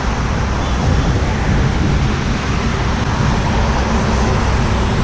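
Motorcycle engine running under a steady rush of wind and road noise on the microphone, with a low rumble throughout.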